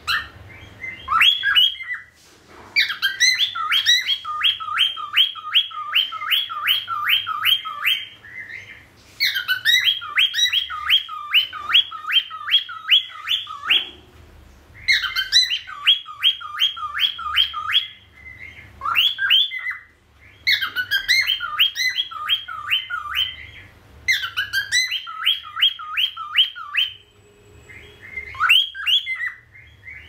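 Cockatiel singing: bouts of quick, repeated whistled notes that sweep up and down, about four a second. Each bout lasts a few seconds, with short pauses between.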